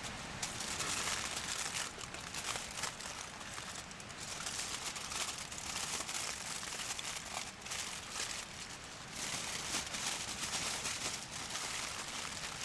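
Meat sizzling and crackling as it cooks over high heat: a dense hiss full of small pops that swells and eases without stopping.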